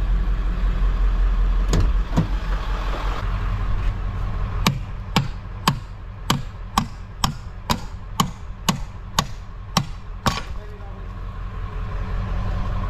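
A 1995 Ford F-350's 7.3-litre turbo-diesel V8 idling, a steady low rumble throughout. A couple of sharp knocks come about two seconds in, then an even run of about a dozen more, roughly two a second, which stop about ten seconds in.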